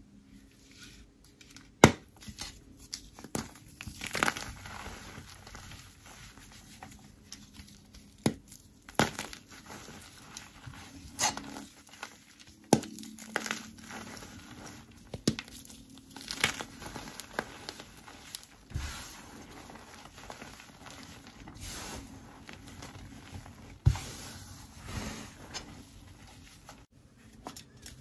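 A block of gym chalk soaked in blue laundry detergent and fabric softener being squeezed and crushed by hand: sharp cracks as the block breaks, the loudest about two seconds in, between stretches of crumbling of the damp chalk.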